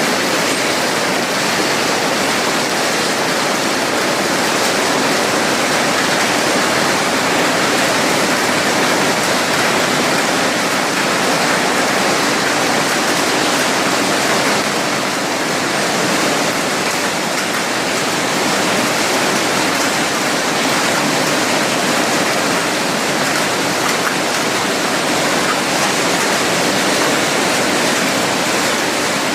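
Automatic cashew nut cutting and shelling machine running, a steady dense clatter of nuts passing through it.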